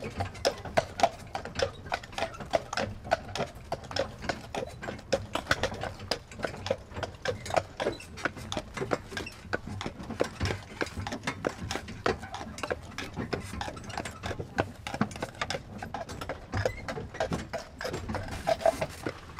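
A draught horse's hooves clip-clopping steadily on a tarmac road as it pulls a covered wagon, several hoof strikes a second.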